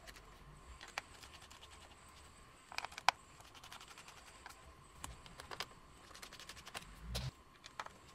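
Faint scattered clicks and scrapes of a small screwdriver working Torx T5 screws out of a MacBook Pro logic board, with a few sharper clicks about three seconds in and a dull low bump near the end.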